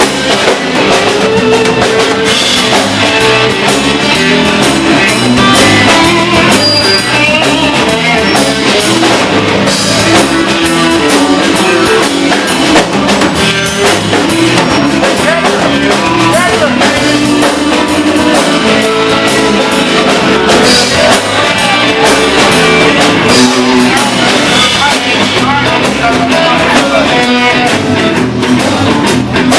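Rock band music with electric guitar and drum kit playing steadily and loud.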